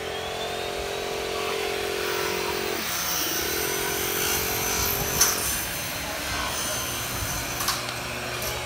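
Air compressor running steadily, blowing air into newly laid fuel pipes for a pressure and leak test, with a steady hiss and a low hum that drops away about halfway through. A few sharp clicks, one about five seconds in and two near the end.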